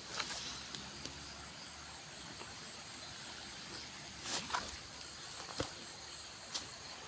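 Steady high-pitched insect chorus over a constant rushing hiss from the flowing river. Brief rustles and steps through wet undergrowth cut in a few times, the loudest about four seconds in.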